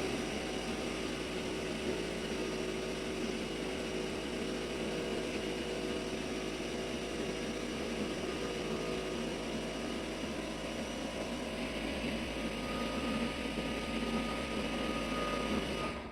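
Steady machine noise, like a motor or blower running, that cuts off abruptly near the end.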